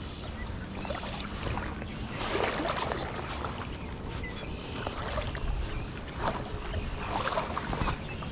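Footsteps crunching through dry grass and leaf litter with clothing rustling, in irregular bursts, over a low rumble of wind on the microphone.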